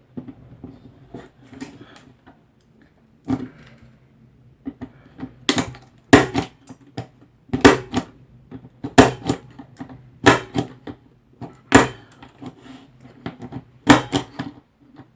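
A hand tool terminating Cat6 cable wires, snapping with sharp, loud clicks about every second and a half from about five seconds in, after a few quieter handling clicks.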